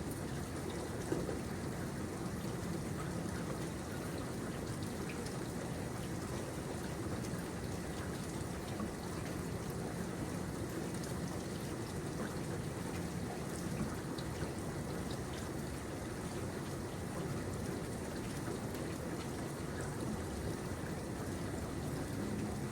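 Steady rain falling, an even patter with scattered individual drops ticking on surfaces.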